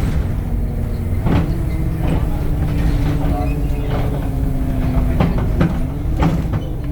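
Temsa Avenue LF 12 city bus with a DAF Euro 5 diesel and ZF gearbox running: a low drone, with a steady whine that comes in about a second in and slowly falls in pitch, and scattered short rattles and clicks.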